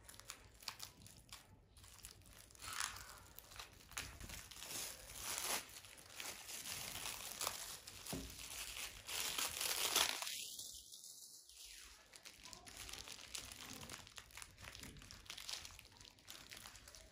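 Clear plastic bag and bubble wrap crinkling and crackling as they are cut open and pulled off a round plastic container, with the crinkling loudest a little past halfway through.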